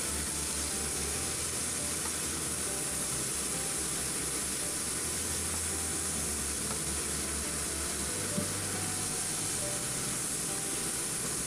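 Chicken pieces and onion sizzling steadily as they stir-fry in a pan, turned with a wooden spatula, with one small knock about eight seconds in.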